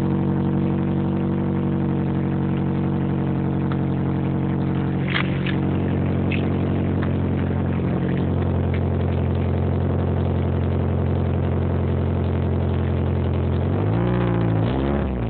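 Toyota MR2's four-cylinder engine idling steadily through a Japspeed aftermarket exhaust, with two quick revs near the end.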